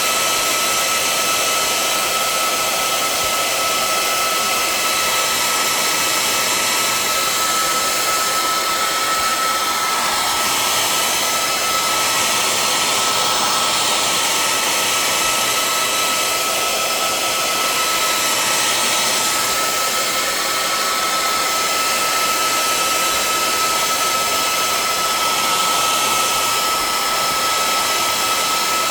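Handheld hairdryer blowing continuously, a steady rush of air with a high motor whine, used to heat a plastic planner cover so it stretches.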